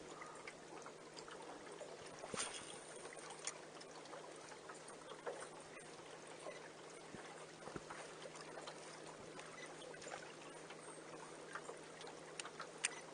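Faint water lapping and trickling against a small boat's hull, with scattered light ticks and knocks, the clearest about two seconds in and near the end.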